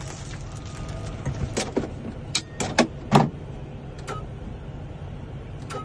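A handful of sharp clicks and knocks, typical of key blanks being handled and clamped into a key-cutting machine, over a steady low hum.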